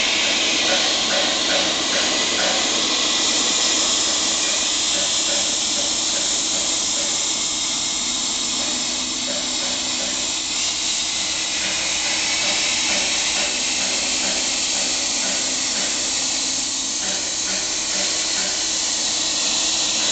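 CNC plasma cutter's torch cutting sheet metal: a steady, loud hiss of the plasma arc and its air jet.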